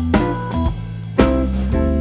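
Background music: guitar with bass and drums on a steady beat.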